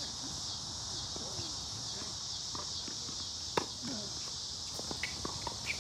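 A tennis ball struck once by a racket, one sharp pop about three and a half seconds in, with a few lighter clicks near the end, over a steady high drone of insects.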